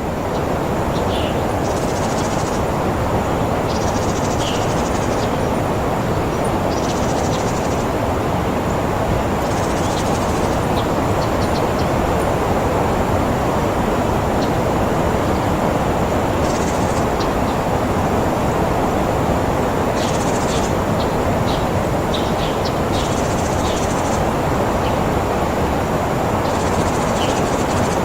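Nature ambience: a steady rushing noise with short, high calls, probably birds, coming every two to three seconds.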